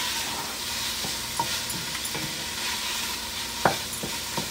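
Vegetarian chicken pieces with onion, garlic and spices sizzling in a stainless steel pot while a wooden spoon stirs them. A few knocks of the spoon against the pot stand out, the loudest near the end.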